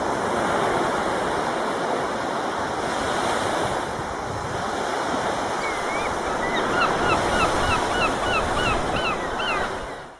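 Sea surf washing in, a steady rush of waves, with a bird giving short repeated calls, about three a second, through the second half; the sound fades out at the end.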